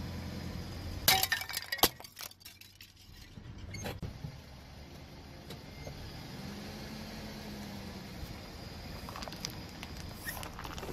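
Stacked plastic cups cracking and crunching loudly under a slowly rolling car tyre, a burst of sharp snaps about a second in and another crack a couple of seconds later. Then the car's engine runs low and steady, with a few small plastic cracks near the end as the tyre reaches plastic shuttlecocks.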